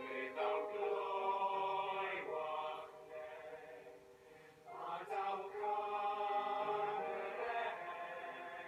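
Boys' and young men's male-voice choir singing in harmony, holding long chords. The singing dies down for a phrase break a little before the middle and the choir comes back in at about five seconds.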